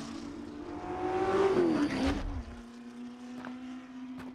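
A Ford GT40 race car's V8 engine running hard as the car approaches and passes, its pitch rising and then dropping steeply about two seconds in as it goes by. It then fades to a fainter steady hum.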